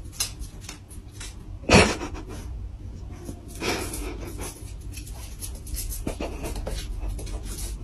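A French bulldog puppy grunting and breathing noisily, with a short yap just before two seconds in, over quick clicks of its claws on a wooden floor.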